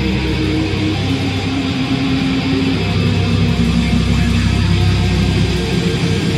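Background music led by guitar, steady and loud, with long held notes.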